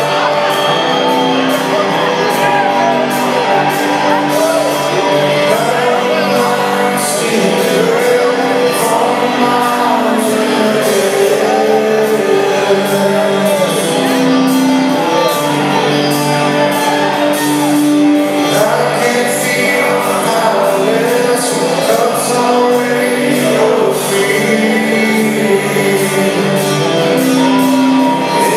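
Live rock band with electric guitars, bass and drums, a male lead voice singing over it, with audience shouting heard in the mix.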